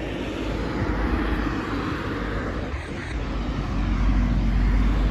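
Road traffic: a vehicle passing with a steady rumble of engine and tyres, growing louder about four seconds in.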